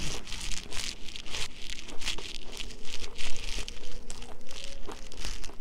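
Crunchy chewing of crisp fried gizzards: a rapid, dense crackle of breading breaking between the teeth. A faint steady hum runs through the middle.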